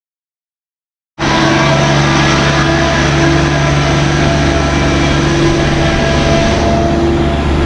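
Motor vehicle engine running steadily, cutting in abruptly about a second in after silence.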